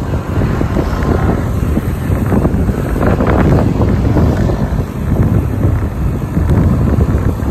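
Wind buffeting the microphone over a steady low vehicle rumble, loud and unbroken.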